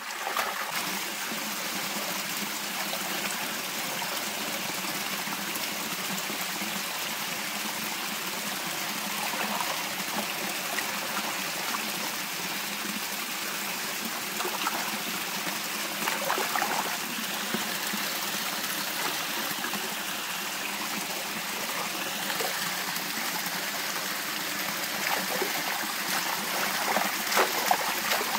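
Steady running water, like a stream flowing, with a few brief louder sounds about halfway through and near the end.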